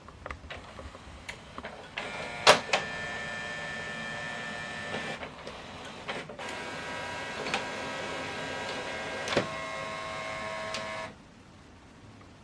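HP OfficeJet Pro 9120e's automatic document feeder pulling pages through and scanning them both sides. Its motor runs steadily with a few sharp clicks, breaks off briefly twice as pages change over, and stops abruptly near the end.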